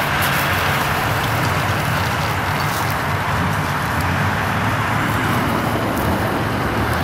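Steady low engine hum under a constant rushing noise.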